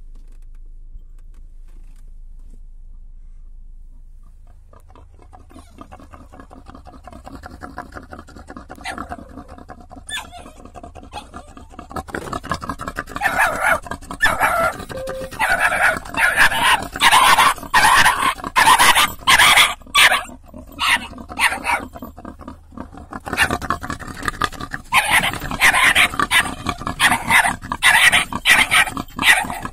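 A dog barking loudly in fast runs of barks, starting about twelve seconds in after fainter sounds build up, with a short break a little past twenty seconds. It is barking at a wild boar at the car window.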